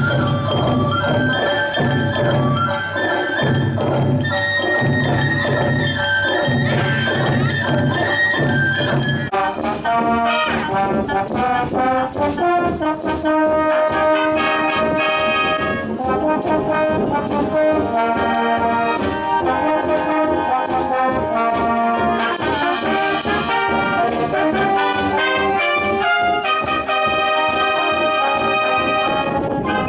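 Recorded dance music with a heavy regular beat played over loudspeakers; about nine seconds in it cuts to a school wind band playing live, with trumpets, trombones and tubas to the fore.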